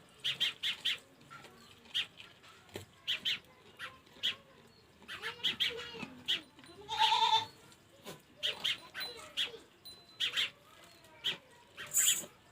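An animal's short, high-pitched cries repeated in quick clusters, with one longer call about seven seconds in.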